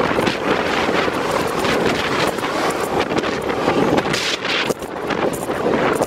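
Wind rushing and buffeting over the microphone of a camera on a moving bicycle, a steady loud noise that swells and dips in gusts.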